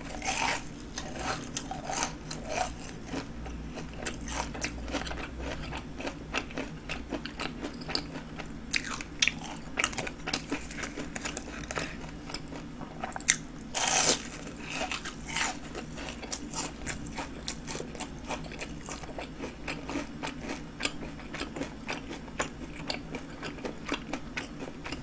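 Crisp crunching as breadcrumb-coated fried king prawns are bitten and chewed, a steady run of small crunches with a few louder bites along the way.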